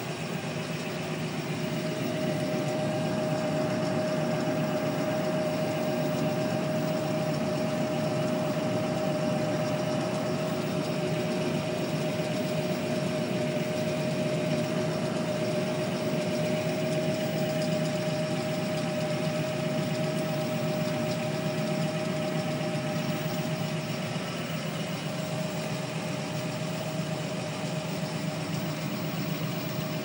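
John Deere 7530's six-cylinder diesel running steadily under working load, pulling and powering a Grimme potato harvester, heard from the tractor's cab. A steady high whine sits over the engine noise from about a second and a half in.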